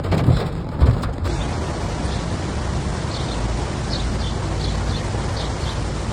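Heavy rain pouring down, with low rumbles in the first second. After a cut about a second in, a steady, even rush of rain and water with a few faint high chirps.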